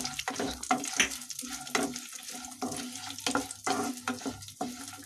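Wooden spatula stirring and scraping sliced dried coconut, almonds, raisins and cardamom in hot ghee in a non-stick kadhai, with irregular clicks of the spatula against the pan over a light sizzle as the nuts roast.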